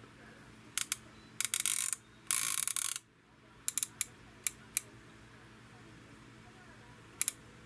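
Sous vide immersion circulator's rotating top dial being turned to set the cook time, clicking through its detents: two quick runs of clicks in the first three seconds, then scattered single clicks, and a last pair near the end.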